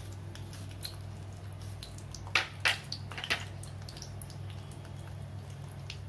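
Garlic cloves and fenugreek seeds in warming sesame oil in a small pan: sparse faint crackling, with three sharper pops between about two and three and a half seconds in. A steady low hum runs underneath.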